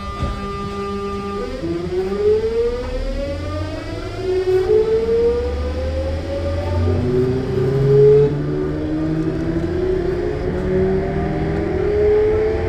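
Sotetsu new 7000 series electric train's VVVF inverter as the train accelerates: a steady whine for about a second and a half, then several tones rising together in pitch, shifting in steps, over the low rumble of the running gear.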